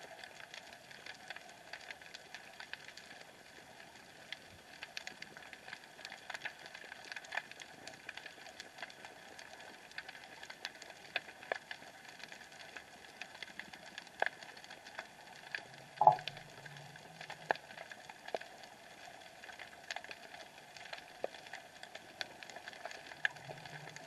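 Underwater sound picked up by an action camera sealed in its waterproof housing: a steady hiss with scattered sharp clicks and crackles, and one louder knock about two-thirds of the way through.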